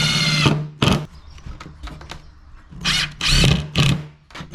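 Cordless drill driving screws into pallet wood in short bursts: one at the start, a brief one about a second in, and a longer run about three seconds in.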